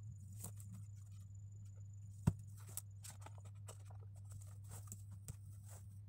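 Small handling sounds at a desk: soft rustles and light taps as a phone and a pen are handled, with one sharp click a little over two seconds in. A steady low hum runs underneath.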